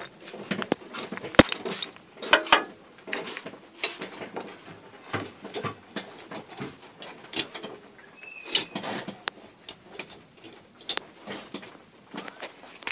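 Irregular clicks, knocks and rustling of boxes, boards and tools being moved about on cluttered garage shelves.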